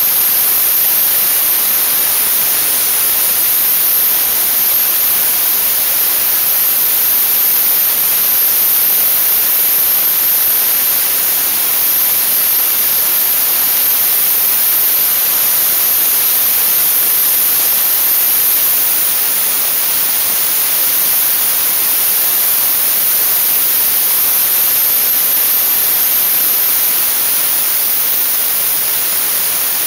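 Dry-ice blasting nozzle jetting compressed air and dry ice: a loud, steady hiss, strongest in the highs, that never breaks.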